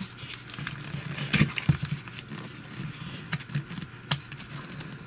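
Fingers handling and opening a small cardboard box: irregular light clicks and taps of card and fingernails.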